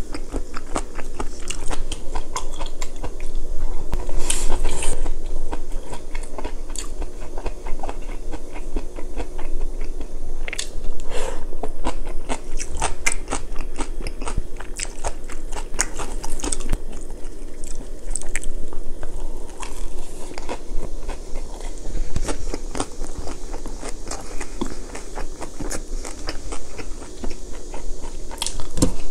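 Close-miked chewing and biting of food, with wet mouth sounds and crunching, in a steady run of small clicks.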